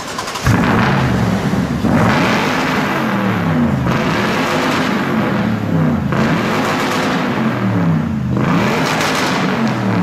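Modified Toyota Tundra pre-runner truck's engine firing up about half a second in, then being revved up and down several times, its pitch rising and falling with each blip.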